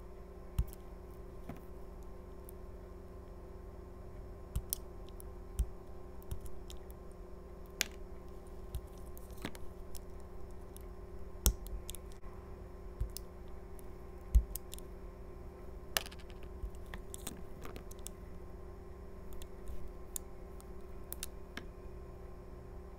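Utility knife blade shaving curls off a translucent soap skull: irregular crisp clicks and crackles as the blade cuts, the sharpest about 11 and 14 seconds in.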